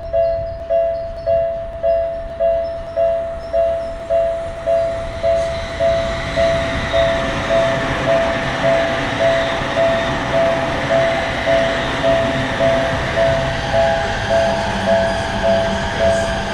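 Japanese level-crossing warning bell ringing steadily, a two-note electronic ding just under twice a second. From about five seconds in, a train's running noise rises under it and carries on as the train comes through the crossing.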